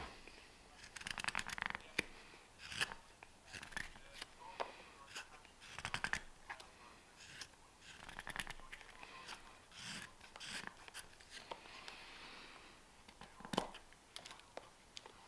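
Carving knife slicing shavings from a green wood spoon: a series of short crackling cuts, each a quick rasp of blade through wood, coming irregularly about once a second, with one sharper cut near the end.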